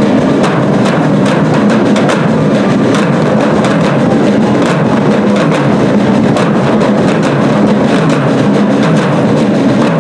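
Marching drums beating a steady rhythm, about two to three strokes a second, with bass drum.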